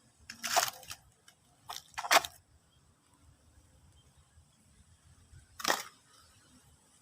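Toy cars being handled: short clattering knocks, once about half a second in, twice around two seconds in, and once more near the end.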